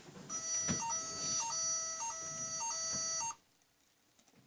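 A robot's electronic alarm sounding: a beeping tone that repeatedly steps between two notes for about three seconds, then cuts off suddenly. It is the alert of a door alarm triggered by its sensor.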